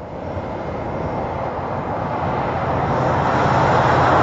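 A road vehicle approaching, its engine and road noise growing steadily louder.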